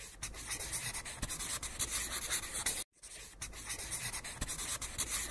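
Pen scratching across paper in quick strokes as a line drawing is sketched, with a brief pause about three seconds in.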